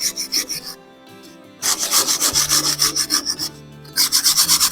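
Rust being scrubbed off the hub face of a car's front brake disc by hand, in rapid back-and-forth scraping strokes, about six a second. The scraping stops briefly about a second in and again near the end.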